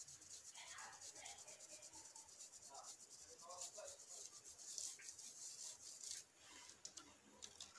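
Faint, quick scratchy strokes of a stencil brush rubbing paint through a plastic stencil onto EVA foam.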